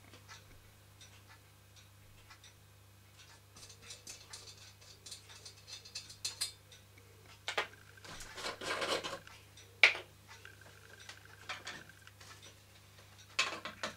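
Irregular light metallic clicks and clinks from a small tin-plate toy steam engine being handled, with a short clattering spell about eight seconds in and one sharp ringing clink about ten seconds in. A low steady hum lies underneath.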